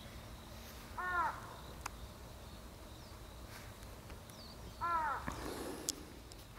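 Two short animal calls, each rising then falling in pitch, about four seconds apart.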